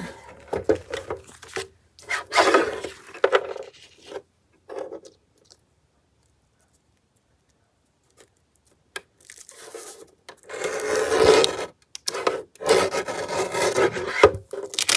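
Rasping, rubbing strokes against the edge of a paper journal page as a little is taken off that edge, in two spells with a pause of a few seconds in the middle.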